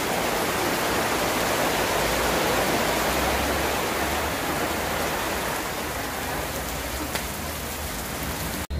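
Steady rushing noise, like heavy rain or strong wind on the microphone, that cuts off abruptly near the end.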